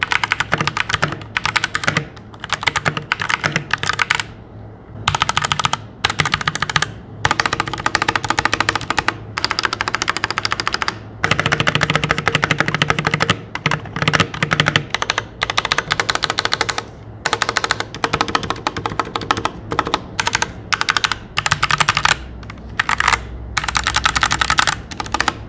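Fast typing on a Royal Kludge G68 hot-swap mechanical keyboard with red linear switches: runs of quick key clacks broken by short pauses. The stabilized keys make no metal rattle, a sign of generously lubed stabilizers.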